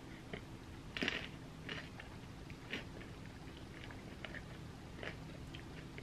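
Close-miked chewing and mouth sounds of someone eating a spoonful of ice cream sundae, with a few short crisp sounds; the loudest comes about a second in.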